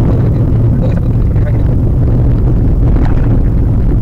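Steady low rumble of a Maruti Suzuki WagonR's engine and tyres while driving, heard from inside the cabin.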